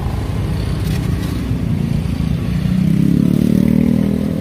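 Steady road traffic rumble, with a motorcycle engine growing louder past the roadside in the second half.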